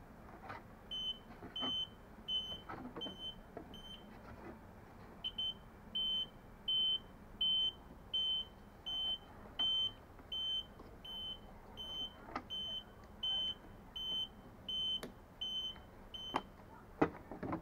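Small reverse-warning buzzers wired to an electric scooter's indicators, beeping steadily in time with the indicator flasher, about one and a half high beeps a second with a short pause about four seconds in. Sharp plastic clicks and knocks from the scooter's front cover being handled.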